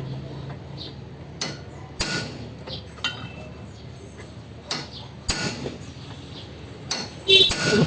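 Hammer blows on metal, about seven irregular strikes, some ringing, the loudest near the end, as a seized lower ball joint is knocked out of a Honda Civic's front suspension arm. The joint is stuck fast and will not come out without hammering.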